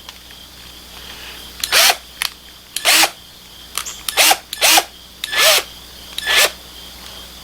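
Small power drill with a tiny bit run in short trigger bursts, about six times, each whir spinning up and down.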